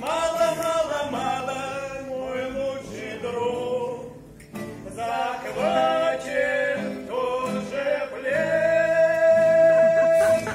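A group of men singing a song to an acoustic guitar, with a brief break about four seconds in and a long held note near the end.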